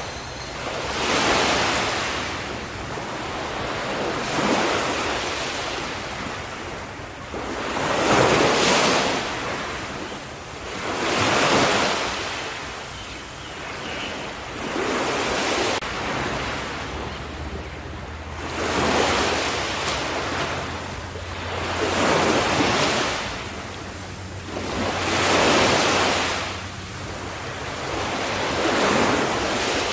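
Ocean waves washing onto a shore, one about every three to four seconds. Each wave swells into a hiss and then fades.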